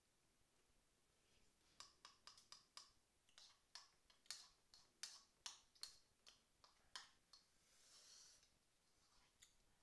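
Faint eating sounds at a table: an irregular run of sharp clicks, about four a second, from mouth chewing and cutlery, starting about two seconds in and stopping near seven seconds. A soft hiss follows near the end.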